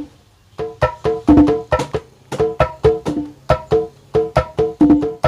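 Akai MPX8 sample pad playing kendang drum samples: short, pitched hand-drum hits in quick rhythmic phrases, starting after a brief pause. The unit is sounding normally again after its audio IC was replaced.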